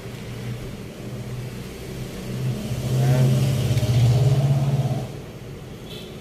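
A motor engine running with a low, steady hum that swells louder about halfway through and drops off suddenly about five seconds in.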